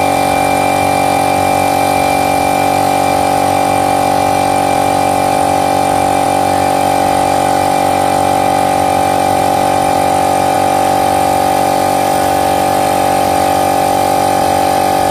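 Oilless electric air compressor running, a loud, steady mechanical hum with a constant whine and no change in pitch.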